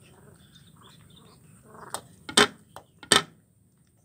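Kitten eating fish scraps off a plate, with soft small clicks, then a few sharp knocks. The two loudest knocks come about two and a half and three seconds in, as the plate is pushed across the wooden floorboards.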